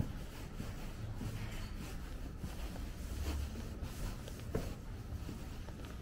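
Low, steady city rumble with faint, irregular scuffs and taps of footsteps on stone paving.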